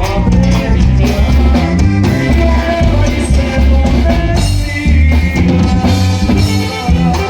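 Norteño band music playing a corrido, with a steady drum-kit beat under the melody.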